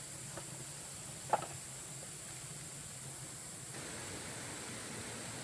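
Steady background hiss of outdoor ambience, with one sharp click a little over a second in and a sudden change in the background tone a few seconds later.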